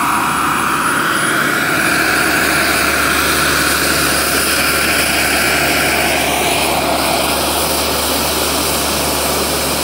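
Radio-controlled Chinook tandem-rotor model helicopter with a Jakadofsky 5000 model jet turbine, turbine whine and rotor noise running steadily as it descends and sets down on the grass; the whine rises in pitch about six and a half seconds in.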